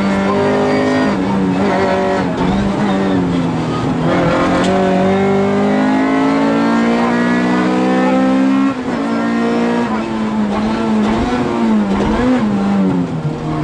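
Honda Civic rally car's engine heard from inside the cabin under hard acceleration. Its pitch climbs steadily for several seconds, drops sharply about nine seconds in, then rises and falls again.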